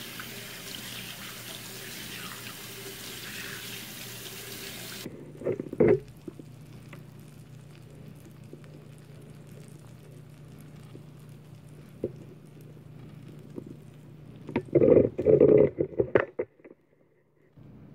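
Kitchen tap running into a stainless steel sink as hands are washed under it, cutting off abruptly about five seconds in. After that a steady low hum, with a couple of loud knocks just after the water stops and a cluster of loud knocks about fifteen seconds in.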